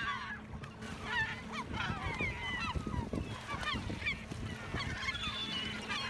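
A flock of gulls calling, many short overlapping cries at once, as they swarm and settle on the water close by. A low steady hum runs underneath.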